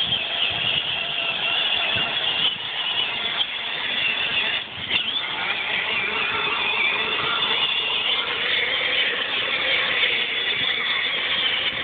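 Electric drive motors and plastic gearboxes of a child's battery-powered ride-on Jeep whining steadily as it drives along.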